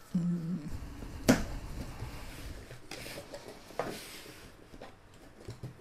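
Cardboard box being opened by hand, its flaps scraping and folding back, with one sharp tap a little over a second in and a couple of softer knocks later.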